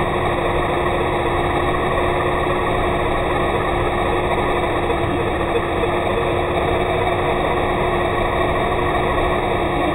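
Simulated diesel truck engine idling for an electric radio-control truck: a steady, unchanging idle with one constant low note.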